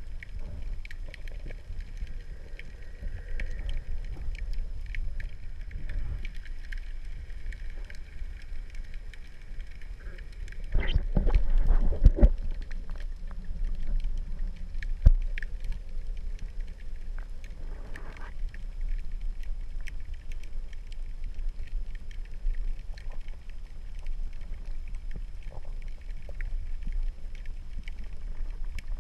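Muffled underwater sound picked up by a GoPro Hero 3 Black inside its waterproof housing: a steady low rumble of moving water with faint scattered clicks. A louder spell of knocks comes about eleven to twelve seconds in, and one sharp knock a few seconds later.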